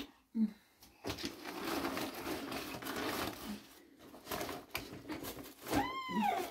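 Clothes and fabric rustling and shifting as they are rummaged through in a plastic crate, with a short knock just after the start. Near the end a single short, high squeal rises and falls in pitch.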